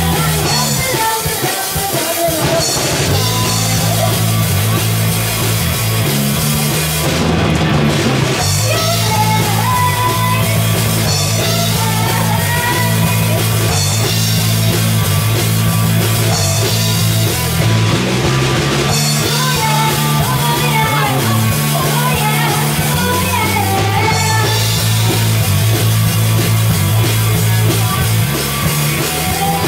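Live amplified rock band playing: drum kit, electric bass and electric guitar.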